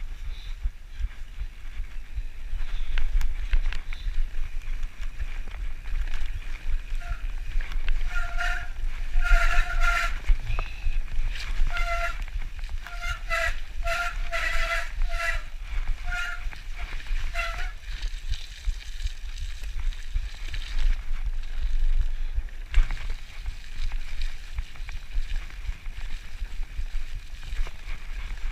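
Mountain bike descending a rough dirt trail at speed, with wind buffeting and rumble from the trail throughout. From about eight to eighteen seconds in comes a string of short squeals, all on one steady pitch, as the brakes are dabbed.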